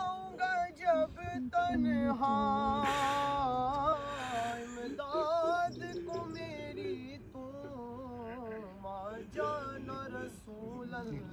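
A solo voice singing a slow devotional chant, with long held, wavering notes and short pauses between phrases.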